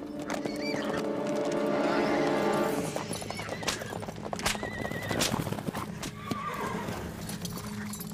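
Horses galloping, with rapid hoofbeats and a horse whinnying, over background film music.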